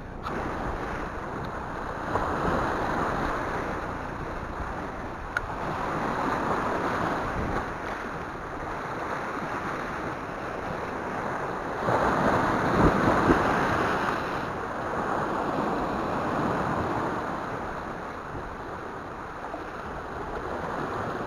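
Sea surf washing over a rocky shore, swelling and falling back every few seconds, with the biggest surge about twelve seconds in; wind rumbles on the microphone.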